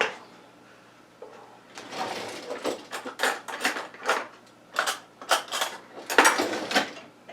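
Kitchen handling clatter: a run of irregular knocks, scrapes and rustles as things are picked up and set down, starting about two seconds in.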